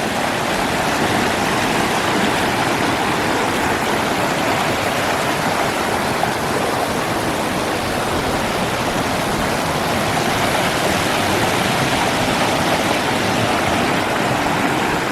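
Waterfall on a forest stream: water pouring steadily over rocks in a loud, even rush.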